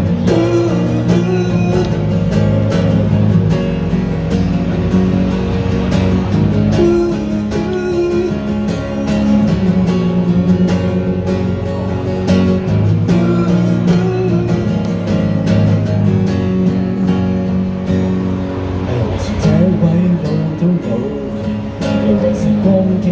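Live acoustic guitar strumming chords in a steady instrumental passage: the intro to a song before the vocals come in.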